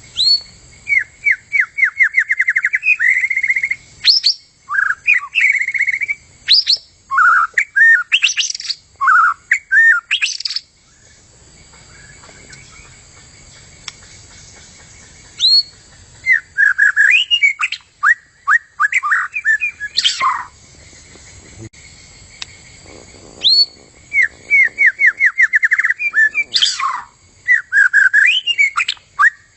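Murai hutan (white-rumped shama) singing in bouts of varied phrases: fast trills, upward-sweeping whistles and sharp notes, with gaps of a few seconds between bouts.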